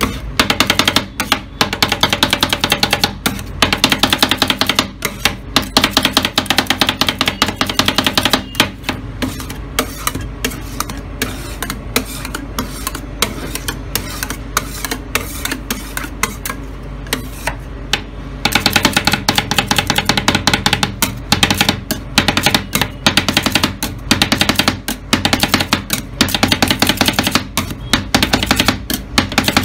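Two flat metal spatulas rapidly chopping and scraping strawberry ice cream on a steel cold plate, a fast, irregular clatter of metal on metal that thins out for about ten seconds in the middle. Background music plays throughout.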